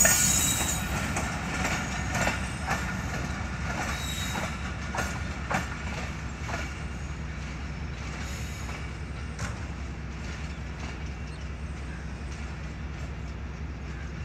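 Passenger train's rear coaches rolling past: wheels clacking over rail joints, loudest at the start with a brief high squeal, then the clacks thin out and the sound fades to a low rumble as the train pulls away.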